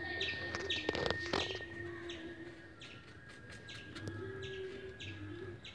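Birds chirping in a steady repeated pattern, short high chirps about two to three times a second, with a lower cooing note underneath. Two sharp clicks come about a second in.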